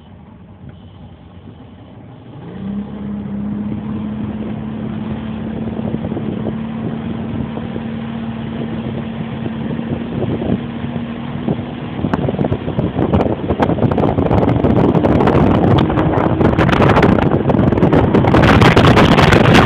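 Bass boat's outboard motor opens up about two seconds in and runs hard at a steady pitch, getting louder as the boat speeds up. From about twelve seconds on, heavy wind buffets the microphone.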